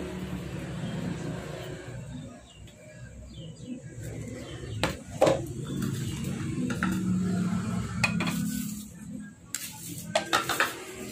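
Wooden and plastic spatulas knocking and clattering against a stone mortar (cobek) as they are handled and lifted out: a couple of sharp knocks about five seconds in, more around eight seconds, and a cluster near the end, over a steady low hum.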